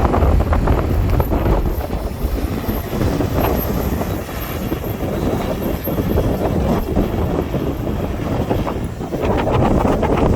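Strong wind buffeting the microphone: a loud, uneven low rumble that rises and falls with the gusts.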